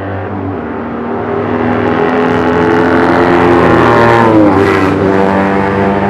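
Racing sidecar outfit's engine at full throttle, getting louder as it approaches. It passes close by about four seconds in with a drop in pitch, then fades away.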